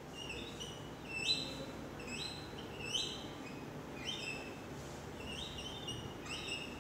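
Dry-erase marker squeaking on a whiteboard while words are written, a series of short high squeaks, about one or two a second, one per pen stroke.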